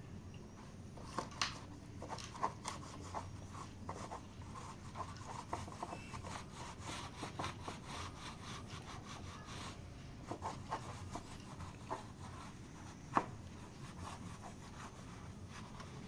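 Polishing by hand: quick, uneven rubbing and scraping strokes on a surface, broken by a few sharper clicks, the sharpest about 13 seconds in.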